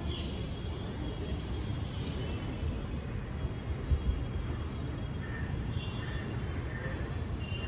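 Steady low outdoor background rumble, with a brief knock about four seconds in.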